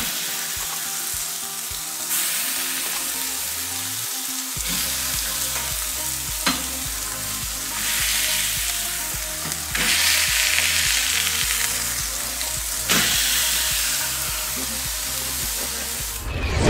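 Venison burger patties sizzling on a hot griddle plate as they are smashed flat with a metal spatula, with a few sharp clicks of the spatula against the plate.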